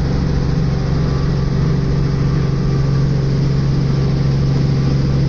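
Helicopter running with a loud, steady low drone.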